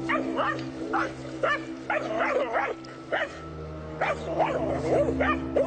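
Dogs barking over and over in quick succession, with a short lull midway, as they confront a snake in the grass. A steady low hum runs underneath.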